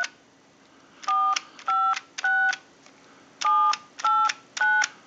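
Western Electric Trimline telephone's touch-tone keypad dialing digits 4-5-6 then 7-8-9. Six short two-tone beeps, about half a second apart, in two runs of three with a pause of about a second between the runs, over a faint steady hum.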